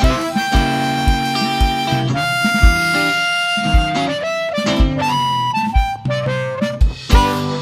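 Live blues band playing: a harmonica holds long wailing notes over guitar and a steady kick-drum beat.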